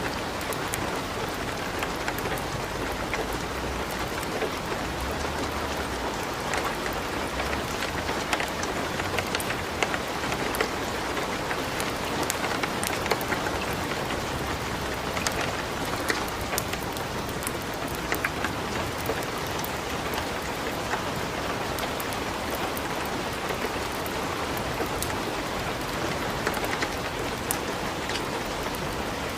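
Steady hiss of light rain mixed with the frequent small crackles and pops of a wood fire burning in a fireplace.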